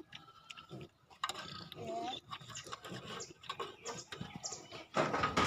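Piglets feeding: short grunts and a brief squeal about two seconds in, among many small clicks and knocks, with a louder noisy stretch near the end.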